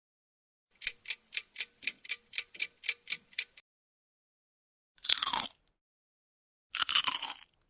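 Clock-ticking sound effect: about a dozen even ticks, roughly four a second, for about three seconds. Then two short bursts of noise, each about half a second long, follow near the end.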